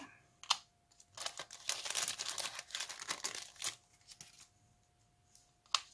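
Clear plastic packaging sleeve crinkling as it is handled to take out a small metal cutting die, with a sharp click shortly after the start and another near the end.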